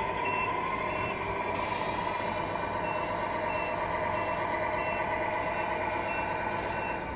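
Sound unit of a Tamiya Scania R470 RC truck playing a reversing alarm, short high beeps about two a second, over its steady simulated engine drone while the truck backs up. A short hiss comes about a second and a half in, with a gap in the beeps.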